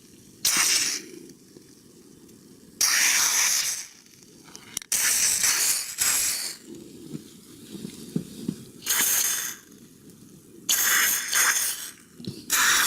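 Car door being opened and shut repeatedly, several noisy bursts about a second long with a sharp click, to work freshly applied Teflon grease into the hinges and door check strap.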